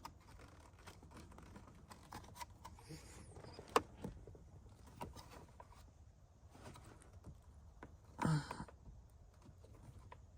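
Light clicks and taps of hands handling plastic steering-column parts and screws, with one sharper click about four seconds in. A short voice sound, like a grunt, about eight seconds in.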